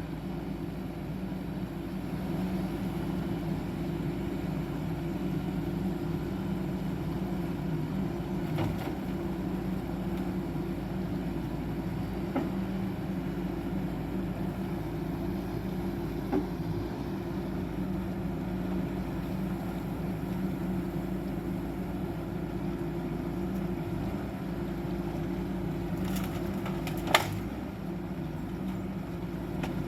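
CAT 420F backhoe's diesel engine running at a steady speed while it works, with a few light clicks and one sharp metallic clank near the end.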